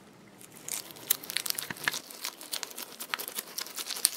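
Homemade mesh stress ball filled with water beads being squeezed in the hand: a dense run of small crackling, crinkling clicks as the beads shift against the balloon and netting, starting about half a second in.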